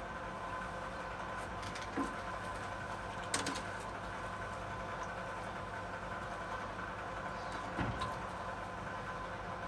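A few short knocks of a kitchen knife on a wooden cutting board, about two seconds in, near three and a half seconds and near eight seconds, over a steady hum.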